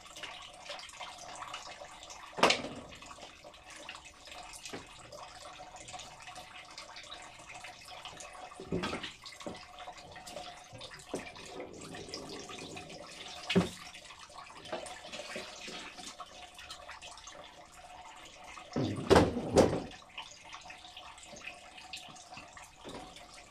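Grape must trickling and dripping from a wooden-slat basket wine press into its collecting tray, with a few knocks; the loudest knocks come about nineteen seconds in.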